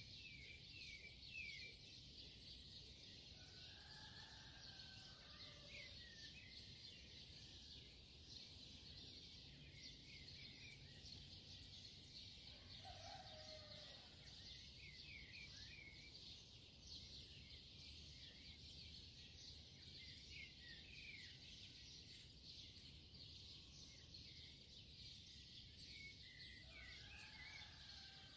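Near silence: a faint steady hiss with small birds chirping softly every second or two, and a few lower calls now and then.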